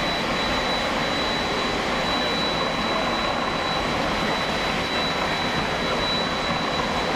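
Steady wind rushing and buffeting on a camcorder microphone on a ship's deck at sea, with a thin steady high whine over it; no gunfire is heard.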